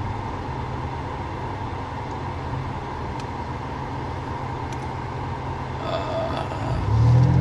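Car engine and road noise heard from inside the cabin while driving: a steady low hum that gets louder near the end.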